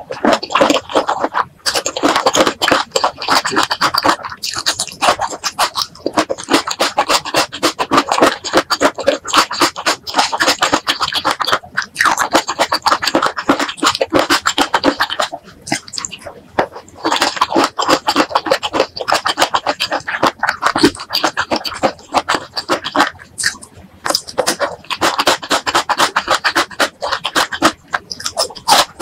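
Close-miked ASMR chewing of boneless chicken feet: continuous wet, sticky mouth sounds, a fast run of clicks and crackles broken by a few short pauses between bites.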